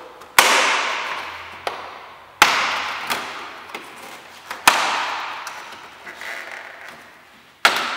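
Plastic retaining clips of a VW Polo 6R front grille snapping loose as the grille's top edge is pulled off: four sharp cracks about two seconds apart, each ringing out as it fades, with a few lighter plastic ticks between.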